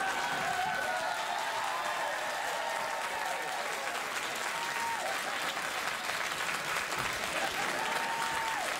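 Studio audience clapping and cheering steadily, with drawn-out whoops that drop away, once about halfway and again near the end.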